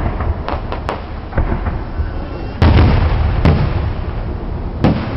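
Aerial fireworks exploding: a few small cracks in the first second, then a loud bang about two and a half seconds in, another about a second later and one more near the end, with a low rumble of echo in between.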